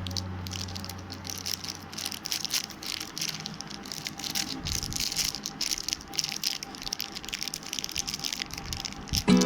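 Packaging being handled during an unboxing: a dense, irregular crinkling and crackling with small rattles, as plastic or paper wrapping is worked open.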